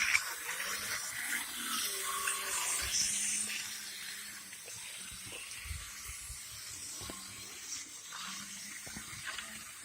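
Model Santa Fe locomotive running around its track: a steady whirring rush of motor and wheels with a faint hum and a few light clicks, getting quieter after about three seconds.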